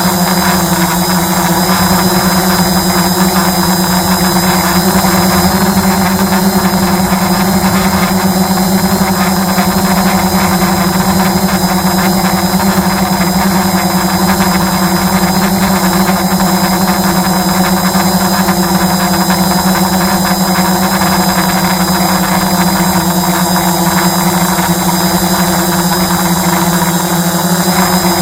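Multirotor drone's motors and propellers humming at a steady, unchanging pitch, picked up close by the camera on the drone.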